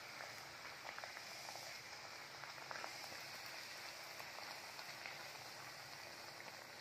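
Hot oil sizzling and crackling steadily around sama-rice (barnyard millet) puris deep-frying in a kadhai, with scattered small pops.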